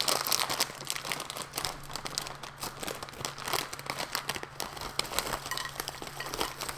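Plastic snack-chip bag of Takis Fuego being pulled open and crinkled in the hands, a dense run of crackles, loudest as it opens at the start; near the end the rolled tortilla chips tumble out of the bag onto a plate.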